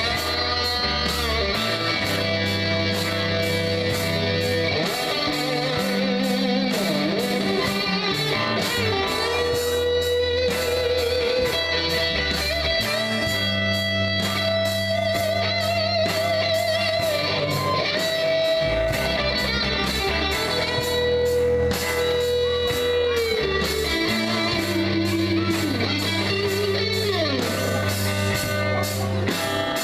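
Live rock band playing without vocals: electric lead guitar with bent, wavering notes over rhythm guitar, held bass notes and a steady drum beat.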